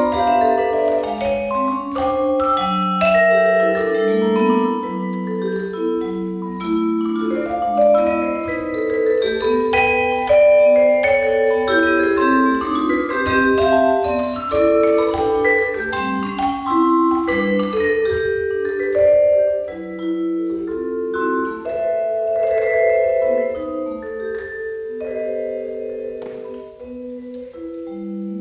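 Solo vibraphone played with mallets: chords and melody notes struck in a flowing line, each note ringing on and overlapping the next. The playing grows softer near the end.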